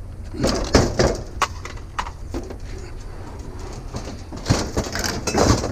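Knocks and clanks of a heavy old Schwinn exercise bike being carried and set down, a scattered few at first and a busier cluster near the end.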